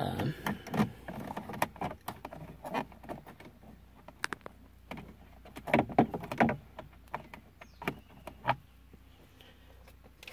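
Irregular small clicks and knocks of a 7 mm socket on an extension turned by hand, backing a screw out of plastic dash trim, with the plastic trim being handled. The clicking is busiest near the start and around six seconds in, then thins out.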